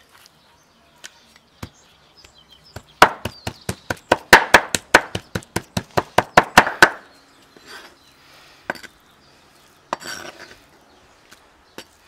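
Meat cleaver chopping raw chicken on a wooden cutting board, mincing it: a fast run of sharp knocks, about five a second, from about three seconds in to about seven, with a few single chops before and after.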